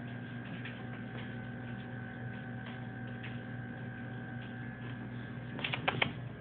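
Steady electrical hum with faint scattered ticks, and a quick run of clicks a little before the end.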